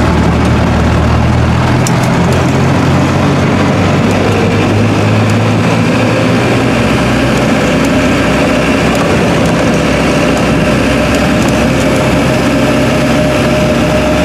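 Land Rover Series II running on the move, heard from inside the cab: a loud, steady engine and drivetrain drone whose low note changes about five seconds in, with a steady whining tone growing stronger in the second half.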